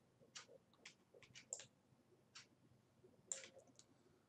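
Faint, irregular clicks from a computer mouse and keyboard, the loudest a little past three seconds in.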